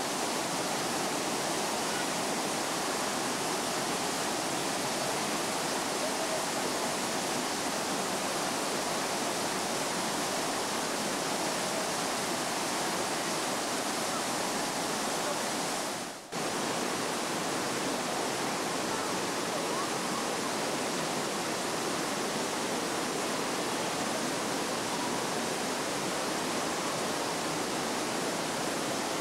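Steady rush of water cascading down a rocky waterfall. The sound drops out briefly about sixteen seconds in, then returns.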